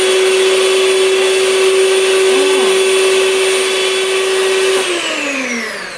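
Electric mixer motor running at a steady high speed, then switched off near the end, its whine falling in pitch as the beaters spin down.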